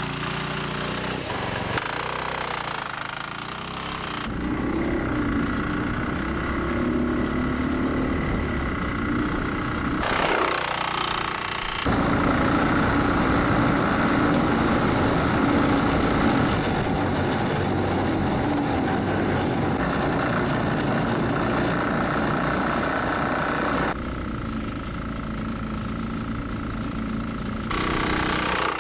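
Predator 212 single-cylinder go-kart engine, governor removed, running at high revs under load on charcoal lighter fluid. It is a steady engine note that shifts in pitch and loudness a few times.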